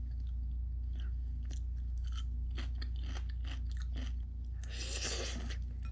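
A person chewing a mouthful of cabbage kimchi close to the microphone, a string of small irregular crunching clicks, with a brief hiss about five seconds in.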